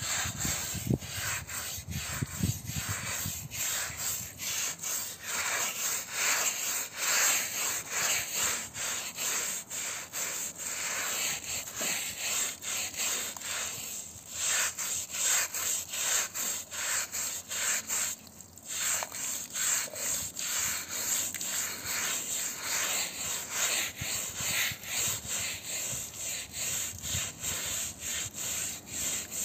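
Stiff-bristled hand scrub brush scrubbing a wet, soapy carpet in quick back-and-forth strokes, a steady rhythmic scrubbing that stops briefly about two-thirds of the way through.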